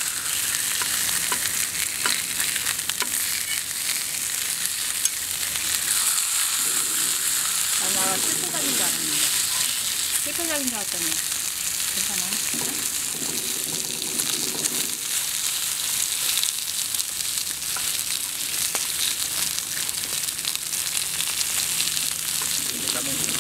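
Slices of pork and onions sizzling steadily on a hot flat griddle. A cleaver and tongs scrape and click against the plate as the meat is cut and turned.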